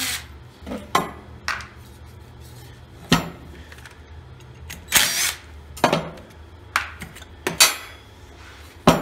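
Scattered metallic clinks and knocks as the sheet-metal fan shroud is pried and worked off the electric motor of a two-stage vacuum pump with a screwdriver, with one longer, louder rattle about five seconds in.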